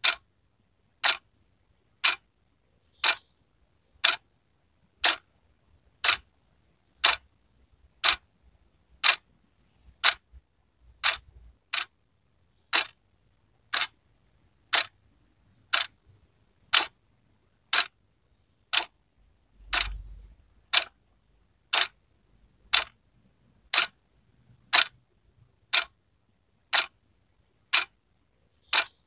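Wall clock ticking steadily, one sharp tick about every second.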